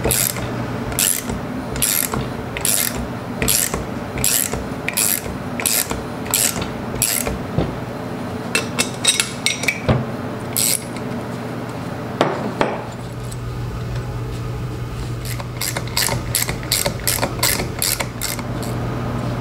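Ratchet wrench clicking as it is swung back and forth on the bolt of a homemade puller, drawing the oil pump out of a Laycock D-type overdrive. The clicks come a little more than once a second at first, bunch up in the middle, stop for a few seconds, then come closer together near the end.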